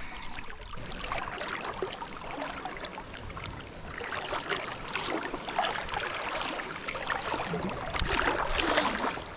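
River water rushing and splashing, a steady, noisy wash without any clear rhythm.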